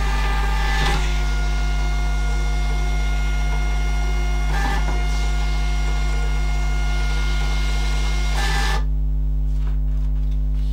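Dymo LabelWriter thermal label printer feeding out two shipping labels, a steady whirring run with a brief louder pulse partway through, stopping near the end.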